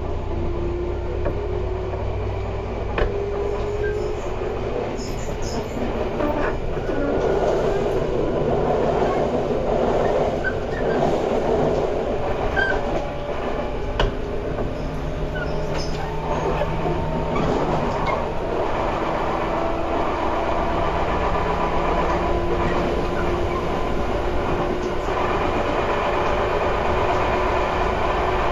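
Tobu 10030 series electric train running, heard on board, with a steady rumble of wheels on rail. The motor and gear hum rises slowly in pitch as the train gathers speed, with a couple of sharp clicks from the track.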